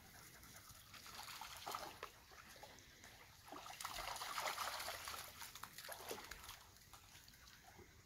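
A small dog running and splashing through shallow creek water. The splashing comes once briefly and then louder and longer, loudest about four to five seconds in.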